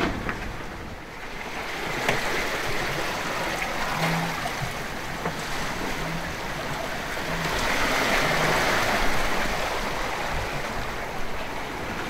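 Wind and sea rushing past a sailing yacht under way on the open ocean, a steady hiss that swells and eases.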